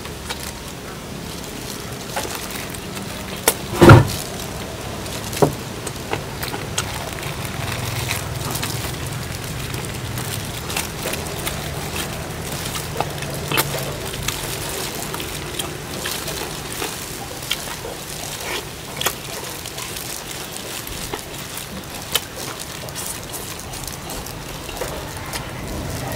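Eating at a table: scattered clicks and knocks of tableware and chicken bones being handled over a steady low background noise, with one sharp loud knock about four seconds in.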